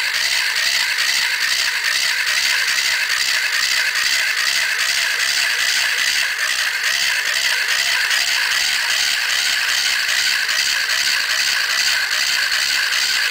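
Small electric motor and gear train of a homemade wooden crawler-tractor model running steadily with a high whine, over an even rattling clatter of its wooden track blocks on fabric belts as it crawls.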